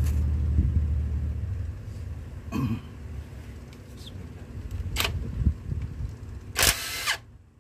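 Cordless impact wrench being fitted to the camshaft timing-gear bolt, with a few metal knocks and a short burst from the wrench near the end. A low rumble fills the first two seconds.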